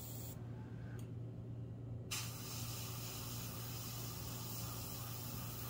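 Airtex airbrush spraying black gel paint through a nail-art stencil: a steady hiss of air that stops after a moment, gives one short puff about a second in, then starts again about two seconds in and keeps going. A low steady hum lies underneath.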